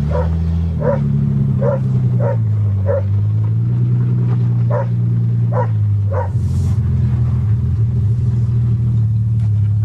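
1982 Toyota Cressida's engine running steadily under way, its pitch shifting slightly now and then. A dog gives about seven short yips over it, mostly in the first six seconds.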